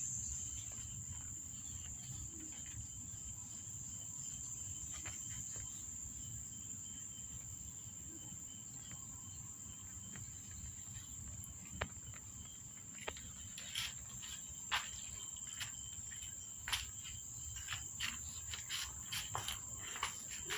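Insects droning in one steady high-pitched tone, over a low background rumble. From about twelve seconds in, a scatter of light clicks and taps joins it.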